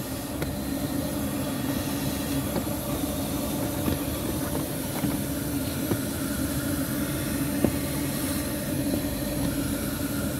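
Handheld electric vacuum cleaner running steadily with a constant hum, its nozzle working in a car's cabin air filter housing to suck out leaves.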